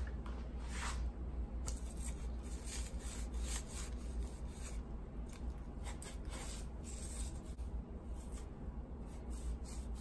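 A damp cloth rubbing and wiping along a Dyson V7 Motorhead vacuum's brush bar, in short irregular scrubbing strokes with light handling scrapes.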